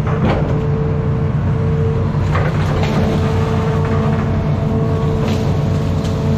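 Hitachi Zaxis 210F amphibious excavator's diesel engine running steadily under working load, with a steady whine over the drone. A few short cracks and knocks of the bucket breaking through brush come about two and a half seconds and again about five seconds in.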